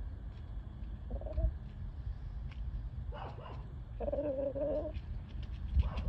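Chickens giving soft, low clucking calls: a short one about a second in and a longer, held call around four seconds in.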